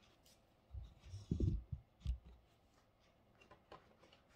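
Handling noise: a few dull low bumps about a second in, then faint small clicks as a guitar pick works along the edge of the monitor's plastic back shell.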